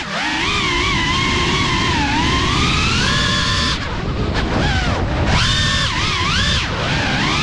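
Geprc Cinelog 35 FPV drone's motors and propellers whining, the pitch rising and falling with the throttle. The whine drops away and comes back about four seconds in, and again near the end.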